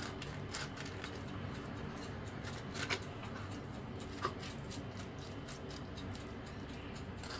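Kitchen knife cutting and scraping around the bone of a raw chicken drumstick on a cutting board: faint scraping with a few small clicks, over a steady low background hum.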